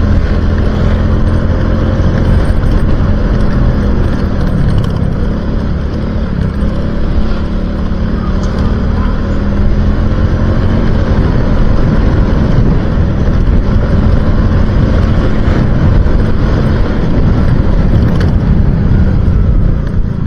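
Motorcycle engine running steadily while riding along, its pitch holding nearly level, under a continuous rushing noise.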